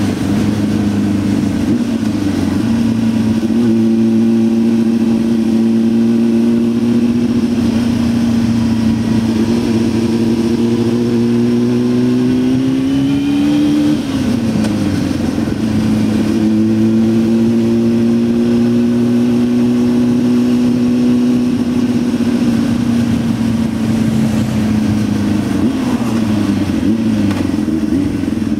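Honda Hornet 600's inline-four engine heard on board while riding. The revs climb, drop back sharply about halfway through, hold steady, then fall away near the end.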